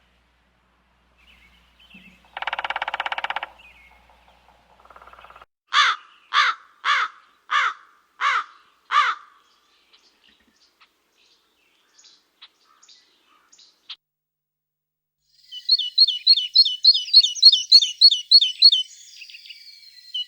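Wild birds calling in a spring forest, several kinds in turn: a harsh buzzy call, then six loud calls each sweeping down in pitch about half a second apart, then near the end a fast run of repeated high chirping notes, about six a second.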